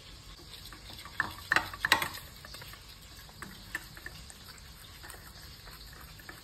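Silicone whisk stirring a melted butter mixture in a stainless steel saucepan: a soft wet scraping with clicks and taps against the pan, loudest in a quick cluster between about one and two seconds in, then lighter ticks.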